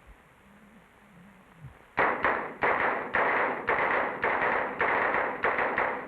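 Pistol fire: about ten rapid shots in four seconds, starting about two seconds in, some spaced about half a second apart and a quick cluster near the end.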